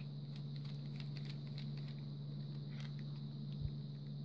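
Scattered light clicks and ticks from a small Phillips screwdriver working the screws of a plastic butane torch lighter and from its casing being handled. There is a soft thump a little over three and a half seconds in, over a steady low hum.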